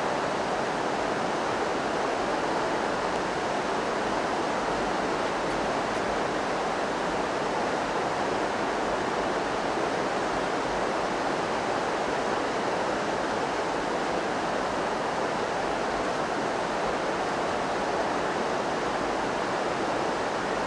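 Steady, even rushing noise at an unchanging level, with no distinct events.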